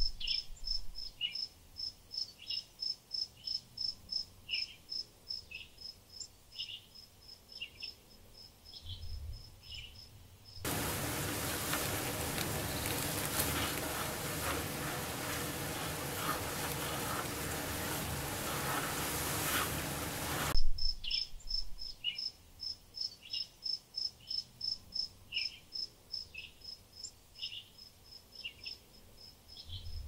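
Nature ambience: a fast, even train of high chirps, about four a second, like a cricket, with lower chirps roughly once a second. About ten seconds in, it gives way to an even rushing noise for about ten seconds, and then the chirping returns.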